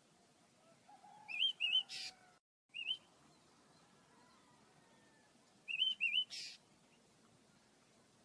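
Small pet birds chirping: three short bursts of quick, wavy chirps, two of them followed by a brief hiss.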